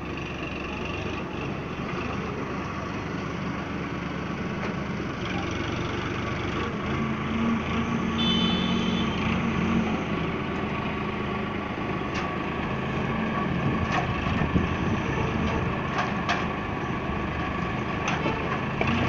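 Tractor diesel engine running steadily while it powers a hydraulic sugarcane grab loader, with a few sharp knocks in the second half as the grab works the cane.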